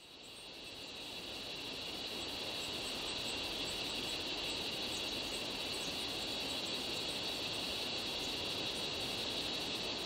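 Steady chorus of insects: an even, shrill drone over a hiss, fading in over the first two seconds.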